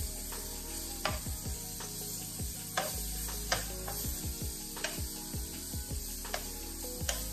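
Onion rings sizzling in oil and flour in a frying pan, cooking as the base of a gravy, while a metal spoon stirs them with frequent light clicks and scrapes against the pan.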